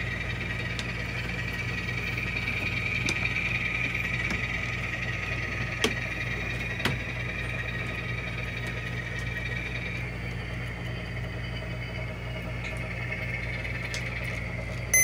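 Model railroad diesel locomotive running slowly, a steady engine sound with a low hum, and two light clicks about six and seven seconds in.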